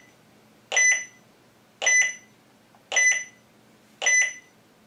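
Wi-Fi alarm base station's built-in buzzer beeping about once a second: four short, high beeps, each starting sharply and fading quickly. The beeping signals that the unit is in setup mode, broadcasting its own Wi-Fi network for pairing with a phone.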